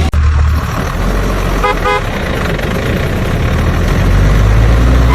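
Tractor engine running steadily with a deep rumble, with a couple of short horn toots about two seconds in.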